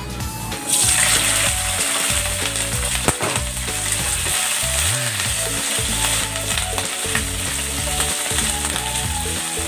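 Canned button mushrooms sizzling in hot oil and fried garlic in a nonstick frying pan. The sizzle starts suddenly under a second in as they hit the oil, then runs steadily while they are stirred with a wooden spatula.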